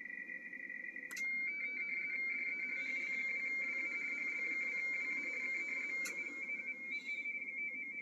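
Two-tone RTTY data signal from a Yaesu FTDX-101MP transceiver: a steady, fast warble flipping between two close pitches around 2 kHz over faint band hiss. A sharp relay click about a second in and another about six seconds in, as the rig switches from receive to transmit and back.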